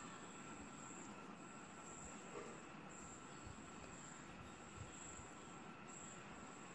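Near silence: a faint steady hiss with a few soft ticks.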